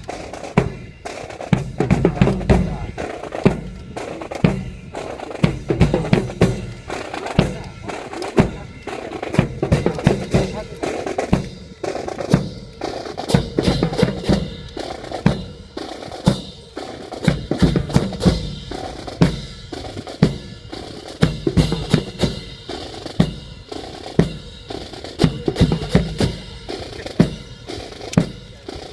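Marching drums, snare and bass drum, playing a steady cadence with sharp rimshot-like cracks and rolls.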